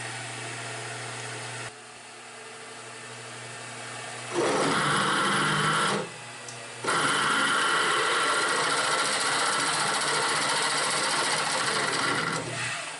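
Angle grinder grinding welds on steel, a steady mechanical whine with a short break about six seconds in.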